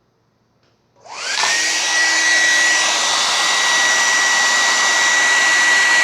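Handheld hairdryer switched on about a second in, running on high: its motor whine rises quickly to a steady high pitch over a loud, even rush of air.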